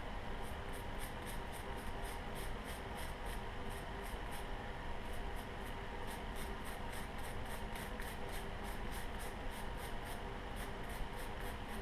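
Small stiff-bristled brush scrubbing carbon off an AR-15 bolt with solvent, in quick back-and-forth strokes about three or four a second.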